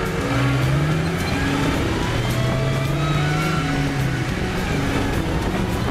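Background music with held notes that change in steps, over the steady road, wind and drivetrain noise of a 2004 Jeep Wrangler Rubicon being driven, picked up from under the vehicle.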